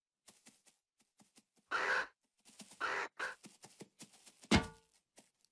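A cartoon ostrich's sound effect: a few short, harsh squawks, the loudest one about four and a half seconds in, with short clicks between them.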